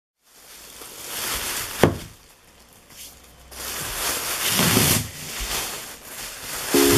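Thin plastic bag crinkling and rustling as hands pull it off a wooden hand plane, in two main surges, with one sharp knock about two seconds in. Music comes in just at the end.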